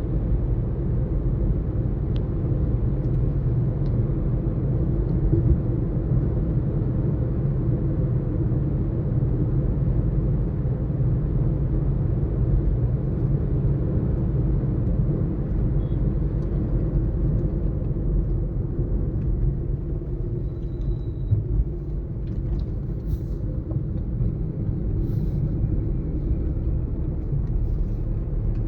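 A vehicle being driven steadily along a road: an unbroken low rumble of engine and road noise.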